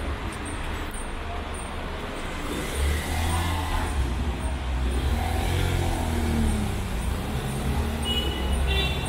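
Mercedes-Benz SUV moving slowly along a wet street, its engine running with a low rumble over tyre noise on the wet road. A few short high beeps come near the end.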